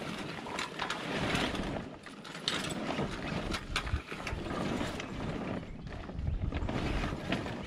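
Sailcloth rustling and crumpling, with repeated clicks and rattles of rigging hardware, as a sail is brought down along the mast by hand.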